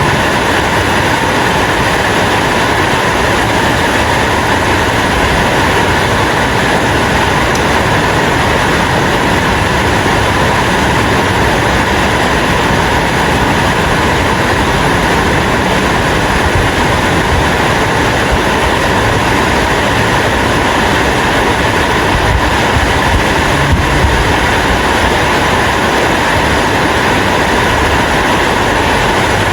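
Rain falling, a steady, unbroken hiss.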